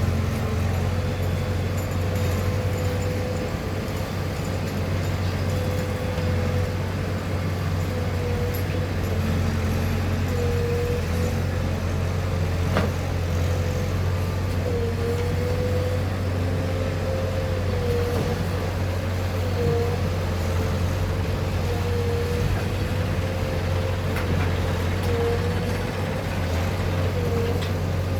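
JCB 3DX backhoe loader's four-cylinder diesel engine running steadily under load, with a whine that wavers slightly in pitch and a single sharp click about halfway through.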